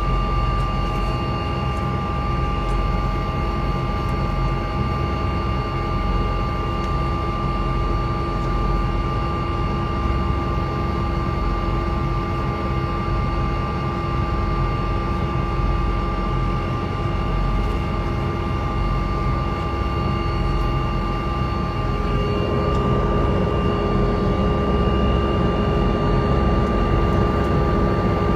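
Helicopter running: a steady engine whine with several held tones over heavy noise. About two-thirds of the way through the pitch shifts, a new lower tone comes in and it grows slightly louder.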